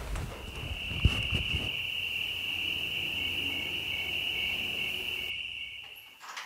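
Cricket trilling steadily at one high pitch, stopping near the end. A few low knocks in the first two seconds, the loudest about a second in.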